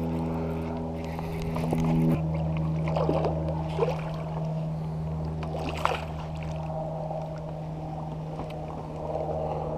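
Steady low motor hum whose tone changes about two seconds in, with a few faint clicks and splashes over it.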